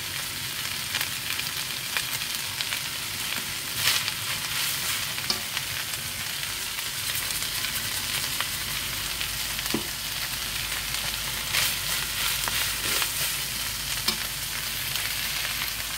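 Food sizzling steadily in a frying pan over high gas heat, with a spatula stirring and a few sharp clicks of the utensil against the pan.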